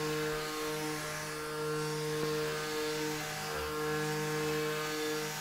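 Tormach 440 CNC mill spindle running at high speed while its cutter mills a brass disc. It gives a steady, even hum with a higher whine above it and a hiss of cutting throughout.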